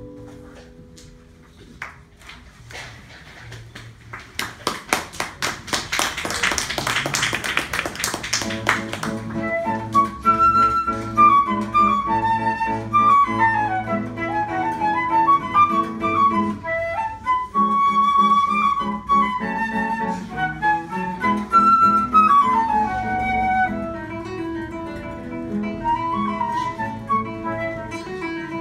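Flute and classical guitar duo playing live. The guitar plays alone at first, quietly, then in a run of fast repeated chords that grows louder; about ten seconds in the flute comes in with the melody over the guitar's accompaniment.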